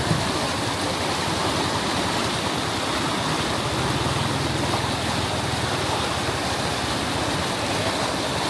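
Steady rushing of fast-flowing water.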